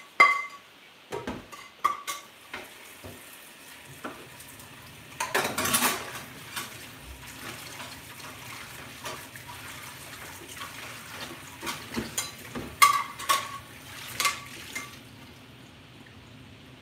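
A metal frying pan and spoon being washed in a sink under a running tap: sharp metallic clanks at first, a burst of rushing, splashing water about five seconds in, then steady running water with more clanks of the pan near the end.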